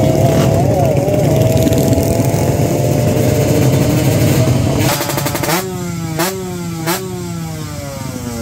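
Racing motorcycles' engines held at high revs, a steady note rising slowly as the bikes pull away down the strip. From about five seconds in, a Kawasaki Ninja R's two-stroke single is revved in three sharp throttle blips, each dropping back after the jump.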